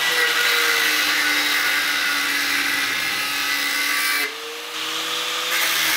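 Angle grinder with a cut-off disc cutting through a steel front strut tube, giving a steady grinding hiss over the motor's whine. About four seconds in the disc eases off the metal, so the noise drops and the motor speeds up, then it bites back in a second or so later.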